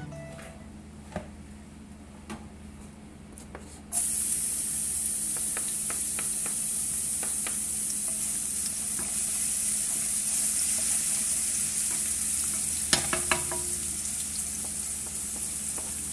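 Minced garlic, ginger and onion hitting hot melted butter in a nonstick wok: a steady sizzle starts suddenly about four seconds in and keeps going as the aromatics fry. A utensil stirs through them, with a couple of sharp clicks against the pan near the end.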